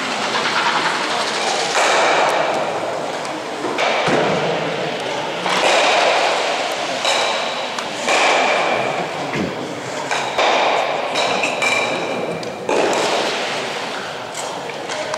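Ice stocks sliding across a hall's stock lane one after another, each slide a rushing hiss that starts suddenly and fades, with thuds of stocks landing and knocking together.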